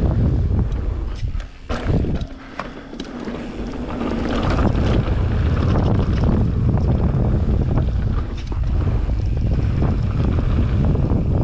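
Wind buffeting an action camera's microphone as a mountain bike rolls down a dirt and gravel trail, with knocks and rattles from the bike over the rough ground. The rush drops away briefly about two seconds in, then comes back.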